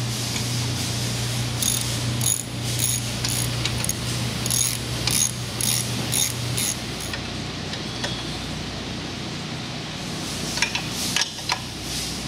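Socket ratchet wrench clicking through a run of quick strokes, about two to three a second, as a bolt is driven in and tightened on the floor grinder. A steady low hum sits underneath. The ratcheting stops about seven seconds in, and a few light metallic clicks follow near the end.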